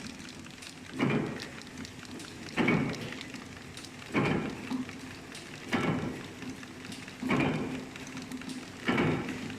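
XLB 320 food packing machine running through its cycles: a steady hum under a short, noisy crackling burst about every one and a half seconds, six in all.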